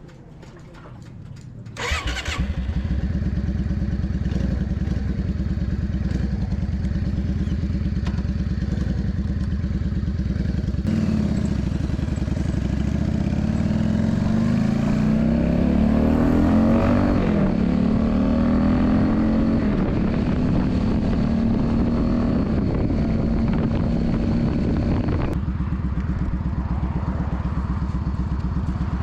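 Yamaha Drag Star 400's air-cooled V-twin engine starting suddenly about two seconds in and running at idle. Around the middle its revs climb for several seconds, drop, hold higher for a while, then settle back to idle near the end.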